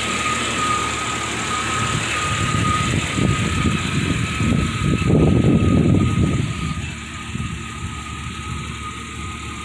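Jeep Cherokee running, with a steady high whine and a louder rumbling surge in the middle that dies down about six and a half seconds in.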